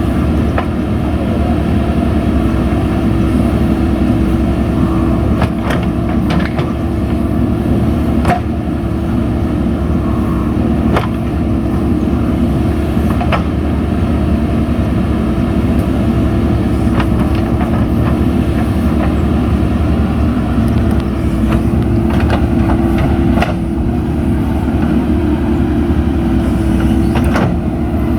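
JCB 3DX backhoe loader's diesel engine running steadily under load, with about nine scattered sharp knocks.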